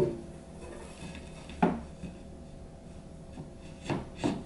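White engineered-wood furniture panels knocking against each other as a shelf panel is fitted onto wooden dowels. A sharp knock with a short ring right at the start is the loudest, another comes about a second and a half in, and two softer knocks follow near the end.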